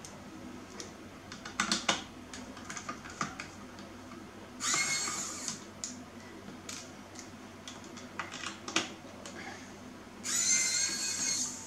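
A small electric screwdriver whirring twice, each time for about a second, once about five seconds in and again near the end, as screws are driven out of a keyboard's metal plate. Between the runs come sharp clicks and light rattles of screws and keyboard parts being handled.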